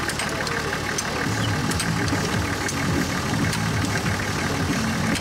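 Off-road truck engine idling steadily, with sharp metallic clicks from a high-lift jack being pumped to raise the truck.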